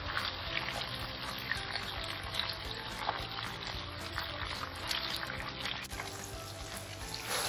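Hot oil sizzling and crackling in a kadai as deep-fried breaded chicken cheese cones are lifted out in a wire-mesh strainer, oil dripping back into the pan, with background music.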